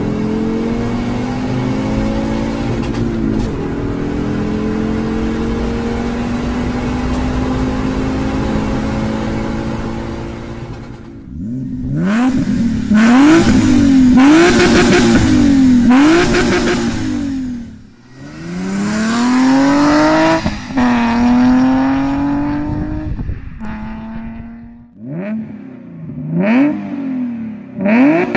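Fiat car engine accelerating hard, heard from inside the cabin, its pitch climbing steadily. Then a Fiat Bravo's engine is revved at standstill: several quick blips, each rising and falling, then a longer rev, and a few more short sharp blips near the end.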